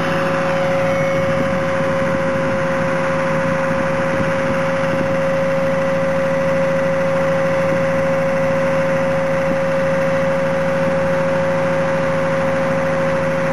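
Fire engine turntable ladder's truck engine and hydraulic drive running steadily as the ladder moves, a constant high whine over an even engine hum.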